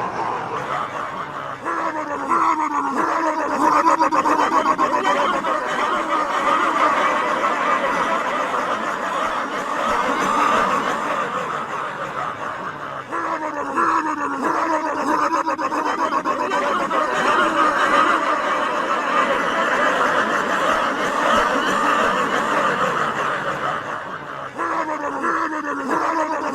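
A person imitating a jet airplane turbine with their voice, a sustained whining, rushing drone. It comes in three long runs, each opening with falling pitch glides.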